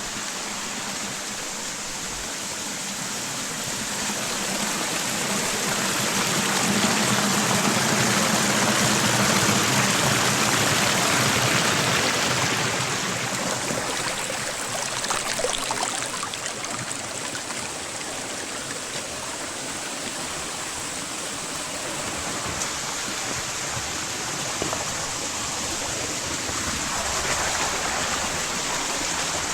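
Mountain creek rushing and splashing over rocks where the stream splits into several channels, a steady water noise that swells louder for several seconds in the middle and then eases.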